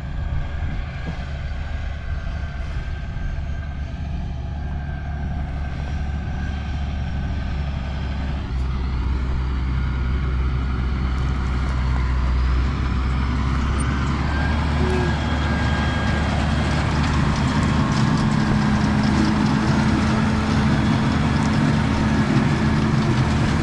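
Tractor engine running steadily. Its pitch rises about a third of the way in, and it grows gradually louder toward the end.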